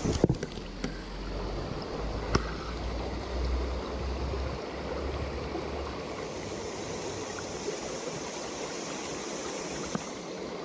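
Stream water flowing steadily, with a few sharp clicks near the start and one more about two seconds in.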